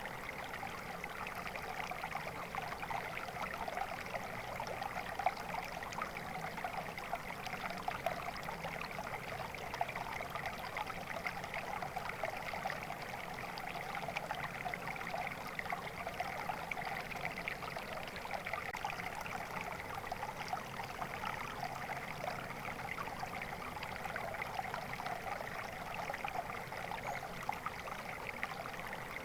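Flowing water, like a small stream, trickling and splashing steadily with no pauses or changes.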